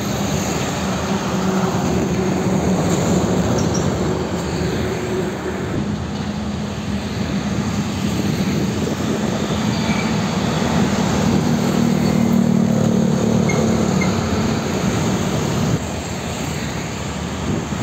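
Heavy road traffic passing close by: diesel container trucks and a stream of motorcycles, their engines and tyres making a steady din. A low engine hum swells about two-thirds of the way through and drops off near the end.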